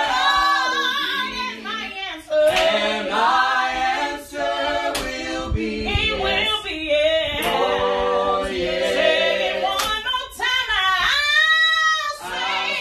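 A small group of voices singing a gospel song a cappella in harmony, with no instruments. Near the end, one high voice carries a run alone, bending up and down in pitch.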